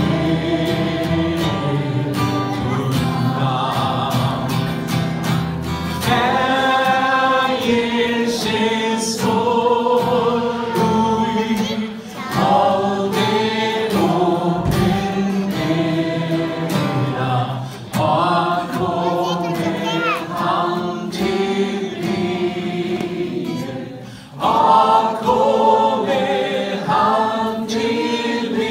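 A man singing a hymn with held notes, accompanying himself on acoustic guitar.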